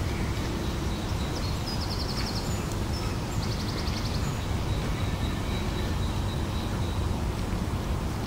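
Steady low rumble of wind buffeting the microphone outdoors. About two seconds in and again about three and a half seconds in, a small bird gives a short, rapid high trill.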